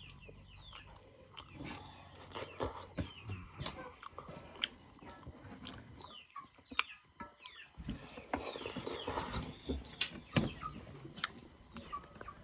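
Close-up chewing and wet mouth clicks and smacks of someone eating rice with nettle curry by mouthful, with short falling bird chirps in the background.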